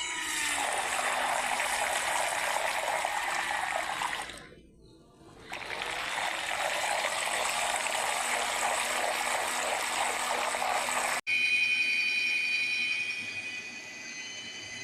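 USB mini washing machine agitating soapy water in a bucket: a steady churning and swishing of water that stops for about a second as the motor pauses to reverse direction, then resumes. Near the end the water sound cuts off abruptly and a steady high-pitched whine follows.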